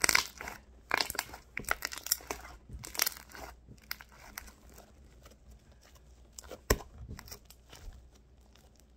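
Sticky fluffy slime being stretched and squished by hand, giving wet crackles and small popping sounds. The crackling is dense for the first few seconds, then thins out, with one sharper pop about two-thirds of the way through.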